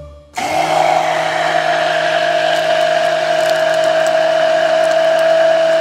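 Personal countertop blender motor switching on about half a second in and running steadily with a constant whine as it purées watermelon chunks.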